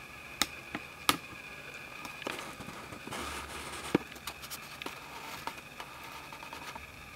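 A few sharp clicks and taps, two close together in the first second and one about four seconds in, with a stretch of soft rustling in between, over a faint steady high-pitched hum.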